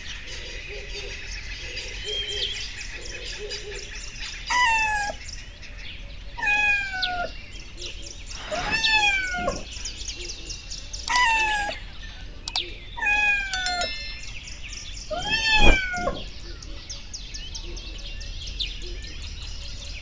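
A cat meowing six times, a few seconds apart, each meow falling in pitch.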